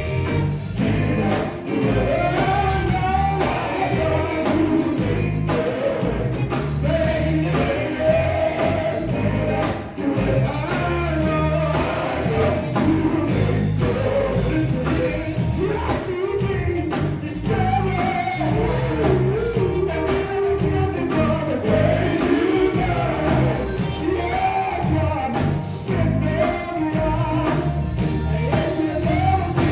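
Male gospel vocal group singing a song live through microphones, backed by a band of keyboard, electric guitars and drums.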